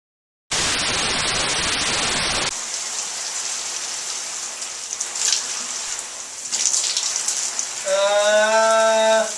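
Shower water running, a steady hiss of spray that starts about half a second in and is louder for the first two seconds. Near the end a man's voice holds one steady note for about a second and a half.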